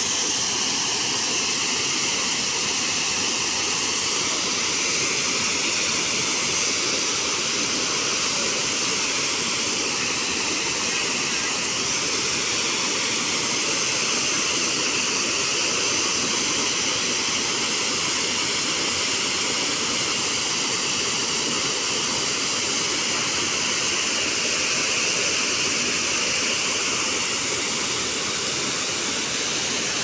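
Waterfall plunging down a rock face into a pool: a steady, unbroken rush of falling water.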